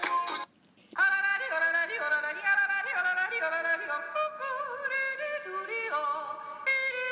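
Phone ringtones playing: the rhythmic tail of one tone cuts off, and after a short pause a new tone starts, a melody of held notes that slide from one pitch to the next, beginning its phrase again near the end.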